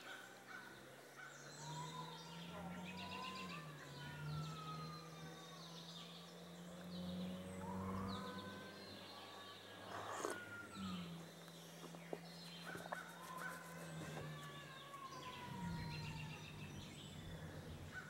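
A toddler screaming and wailing some way off in long, drawn-out cries that rise and fall in pitch, faint over a steady low hum.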